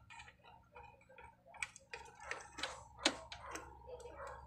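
Scattered light clicks and taps, irregular and close together, from fingers handling wires and a plug connector on an amplifier's circuit board, over a faint steady hum.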